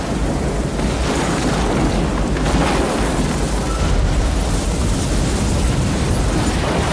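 Strong storm wind buffeting the microphone: a loud, dense rush of noise with a heavy low rumble, swelling a little midway.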